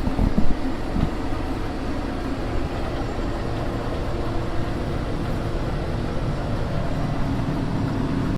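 Diesel engine of a RoGator self-propelled sprayer running steadily under load as it sprays, a continuous drone heard from inside the cab, with a brief knock about half a second in.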